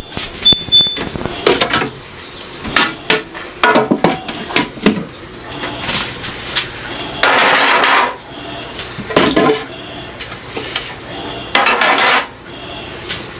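Jars, plastic containers and refrigerator shelves or bins being handled and set down, with irregular knocks, clinks and rattling clatter while a fridge is emptied. In the first second a short repeating high electronic beep sounds, typical of a refrigerator's door-open alarm.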